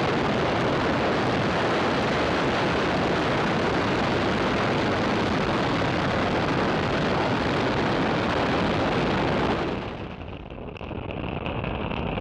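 Falcon 9 rocket's nine Merlin 1D engines at full thrust just after liftoff: a loud, steady rush of noise that cuts off abruptly near the end, leaving a quieter hiss.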